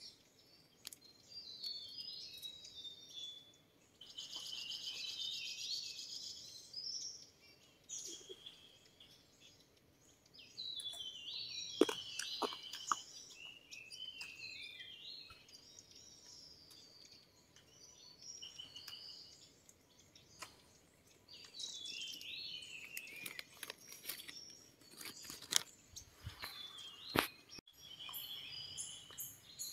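Several wild birds calling and singing, overlapping chirps and quick falling trills. A few sharp clicks break in, the loudest about twelve seconds in and more near the end.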